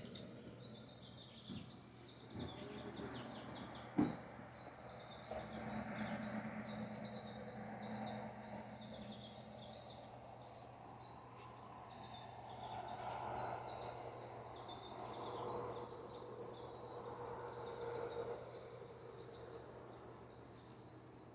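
Small birds chirping and twittering steadily, with a single sharp knock about four seconds in and some faint, indistinct background noise in the middle.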